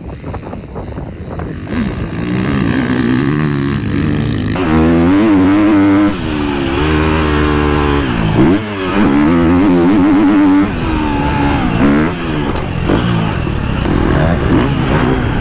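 Motocross bike engine on its stock ECU, revving hard under acceleration. The pitch climbs and falls repeatedly through gear changes and throttle shut-offs.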